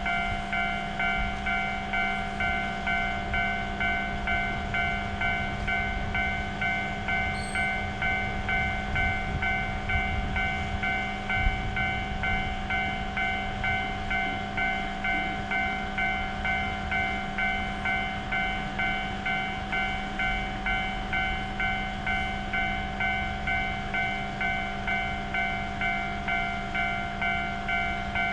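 Japanese railroad crossing alarm ringing steadily at about two strikes a second. A train rumbles underneath, strongest about ten seconds in, with one sharp knock.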